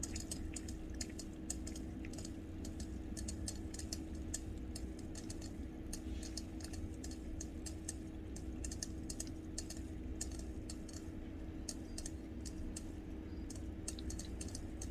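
Domestic cat lapping water with its tongue: a quick, irregular run of small wet clicks, several a second, over a steady low hum.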